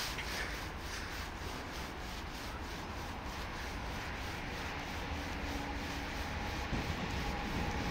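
Electric locomotive hauling a container freight train, heard approaching from a distance: a steady rumbling rush that slowly grows louder, with a faint hum coming in about five seconds in.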